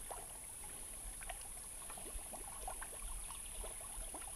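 Shallow creek trickling and gurgling over rocks, a faint flow broken by many small bubbling pops, over a steady high-pitched hiss.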